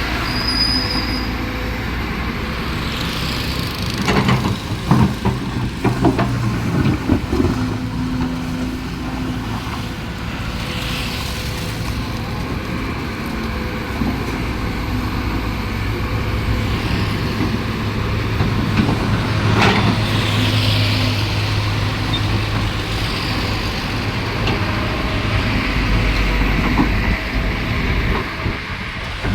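Kobelco excavator's diesel engine running steadily while working, with a cluster of sharp clanks and knocks about four to seven seconds in and another knock near twenty seconds.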